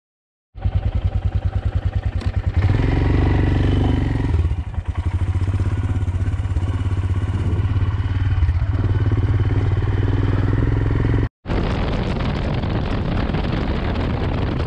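Royal Enfield Himalayan 411's single-cylinder engine running with an even pulsing thump, then louder and steady as the motorcycle gets under way. About eleven seconds in it cuts off suddenly and gives way to wind rushing over the microphone while riding.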